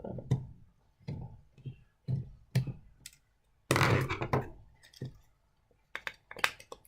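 Irregular small clicks, knocks and thunks of a screwdriver working on a model train's screws and metal body, with a louder clatter about four seconds in.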